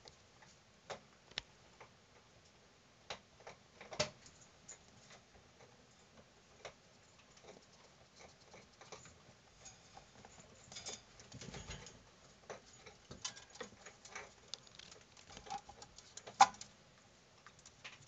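Gambian pouched rats moving about in a wire cage: faint, irregular light clicks and taps, with a short rustle a little past the middle and the sharpest tap near the end.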